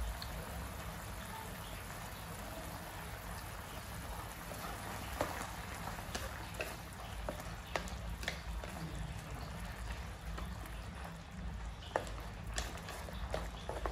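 Sauce with sliced sausage bubbling and crackling in a wok. From about five seconds in, a wooden spatula stirs it, with several sharp knocks against the pan.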